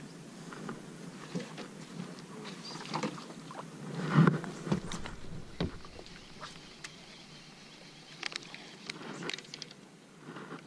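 Scattered clicks and knocks aboard a small fishing boat, with one louder knock about four seconds in.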